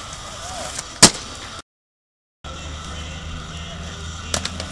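Inline skates on a concrete skatepark ledge: rolling and grinding noise with one sharp slap about a second in as a skater comes down onto the concrete. The sound then cuts out for under a second and comes back with a low hum and a few light clicks.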